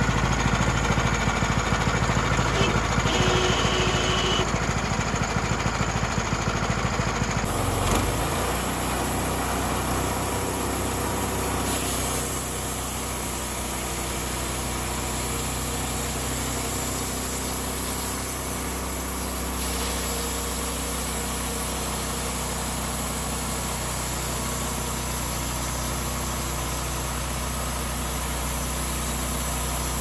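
A 420cc four-stroke, roughly 15 hp engine runs steadily, driving a bandsaw mill's blade as it cuts along a log. The sound changes abruptly about eight seconds in and then runs a little quieter and even.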